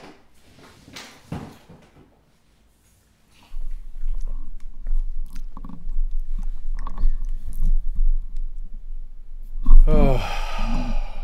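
A steady low hum comes in about three and a half seconds in, with scattered soft clicks and knocks over it; near the end a person's voice makes a short sound that falls in pitch.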